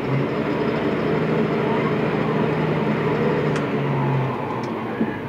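Case IH CVT tractor's diesel engine, heard from inside the cab, revving up as the tractor takes off with the minimum and maximum hand throttles fully split. It rises in pitch about a second in and holds there, then eases back down after about four seconds. With the throttles split, the CVT lets the engine take on load and rev higher.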